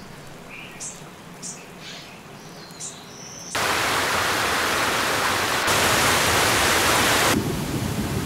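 Soft outdoor ambience with a few short bird chirps, then, about three and a half seconds in, a loud, steady rush of water falling and splashing over rock from a waterfall. The rush changes tone twice as the sound cuts between takes.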